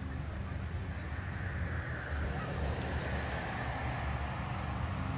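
A car approaching along the road and passing close by, its tyre noise swelling toward the end, over a steady low rumble.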